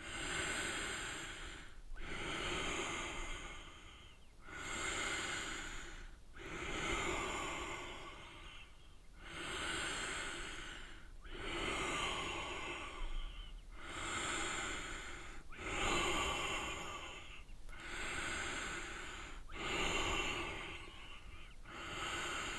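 A man breathing slowly and deeply, close to the microphone: in-breaths and out-breaths take turns, each about two seconds long with a short pause between them.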